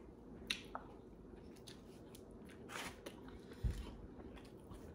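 Faint chewing of a mouthful of prime rib cheesesteak sandwich, with a few small wet clicks. A soft, low thump comes a little after three and a half seconds in.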